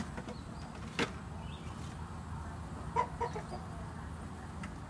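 Two sharp knocks about a second apart as bamboo eel-trap tubes are handled, then a few short pitched calls about three seconds in.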